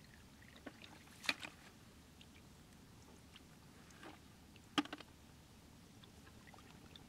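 Snail shells knocking against the plastic bucket and each other as they are dropped in, with light hand splashing in shallow water: a pair of clicks about a second in and the loudest knock near five seconds.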